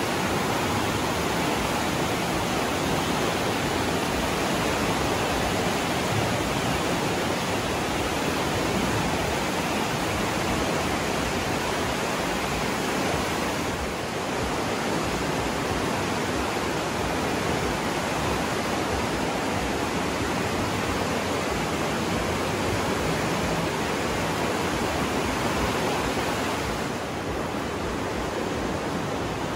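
The Aare river's fast water rushing through the gorge: a steady, even rush of water, dipping slightly about halfway through and again near the end.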